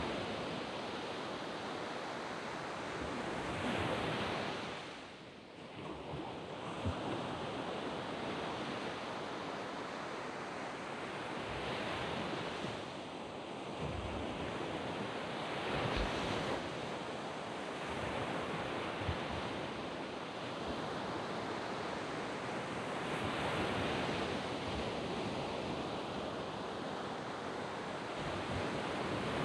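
Surf breaking on a sandy beach: a continuous wash of sea water that swells and eases as each wave comes in, with louder breakers around four, twelve, sixteen and twenty-four seconds in.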